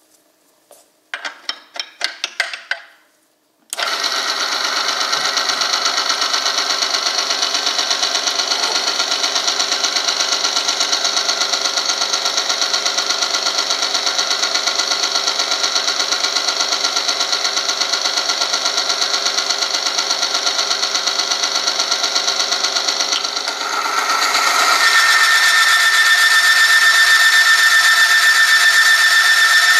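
Oil film tearing test machine: a few metal clicks as the lever arm is fitted, then about four seconds in the electric motor starts and the rotating steel part runs against the test sample in hot oil with a loud, steady grinding whine. Near the end the sound grows louder and a high squeal sets in as more weight loads the lever arm onto the sample.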